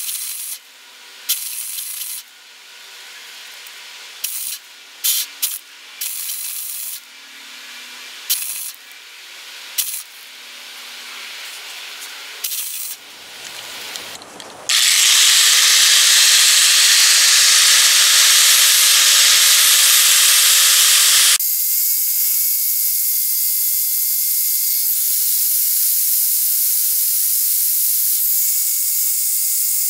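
MIG welder striking short tack welds in a series of brief sizzling bursts, each a second or less. From about halfway an angle grinder runs steadily and loudly on the welded joint with a steady whine whose pitch shifts partway through.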